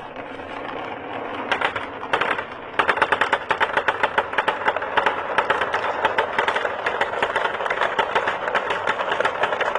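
Many marbles rolling and clacking down a marble run track in a dense, rapid clatter that builds over the first few seconds and then runs on steadily.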